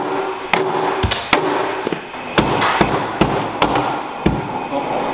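Aluminium frame sections of a gymnastics podium being kicked and struck with a metal bar, an irregular run of about a dozen sharp metallic knocks and heavy thuds, to knock loose a part that is jammed.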